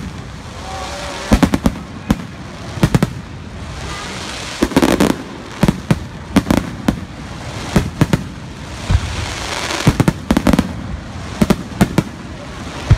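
Aerial firework shells bursting in a finale barrage: sharp bangs come one to two a second at uneven spacing, some in quick clusters, with a steady crackle in between.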